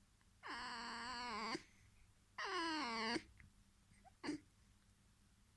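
Red fox making whining squeaks: two wavering calls of about a second each, the second falling in pitch at its end, then a short squeak about four seconds in.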